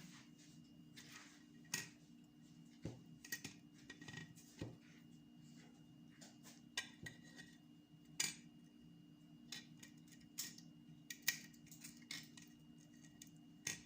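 Faint, scattered clicks and scrapes of a utensil against a glass plate as refried beans are spread on a crisp tostada, over a steady low hum.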